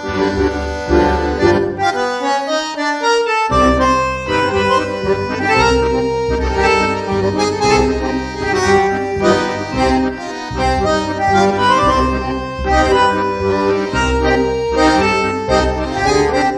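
Accordion music with a steady bass line. The bass drops out briefly about two seconds in.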